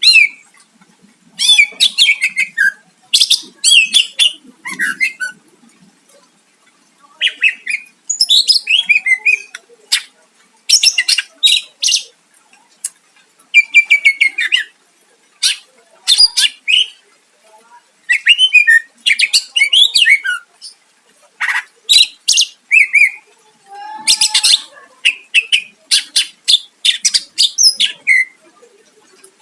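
Cucak ijo (green leafbird) singing in loud, repeated bursts of rapid, varied chattering phrases and trills, high-pitched, with short pauses between phrases.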